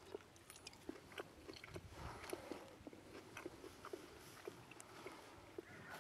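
Faint chewing: small, irregular crunching clicks of a person eating.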